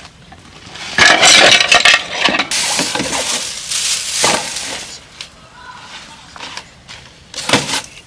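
Metal tongs and scissors clattering against a wooden plate as the dinner things are set down for washing up, then a plastic rubbish bag rustling as it is pushed into a pop-up bin. A short clatter comes again near the end.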